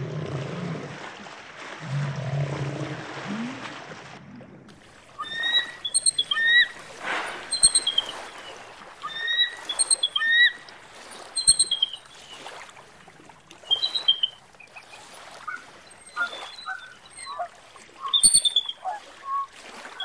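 An eagle calling: bursts of short, high, piping chirps, several notes to a burst, repeated every second or two from about five seconds in. Before that, a low, rumbling, watery sound.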